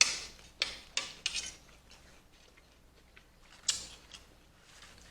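Forks scraping and clinking against a salad bowl: four short scrapes in the first second and a half, then one more later.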